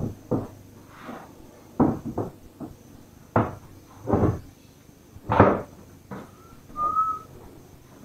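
Yamaha YTX125 motorcycle seat, plastic base and vinyl cover, being turned over and handled on a wooden floor: a series of knocks and scuffs as it is lifted, flipped and set down. A brief thin high note sounds near the end.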